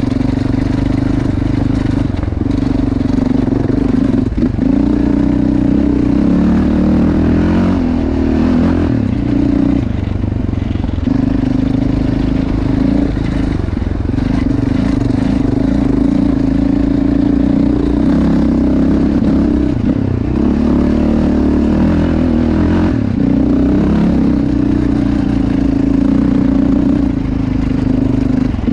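Yamaha Raptor 700R quad's single-cylinder four-stroke engine running through a Yoshimura RS-4 exhaust while being ridden, its note rising and falling as the throttle is opened and eased every few seconds.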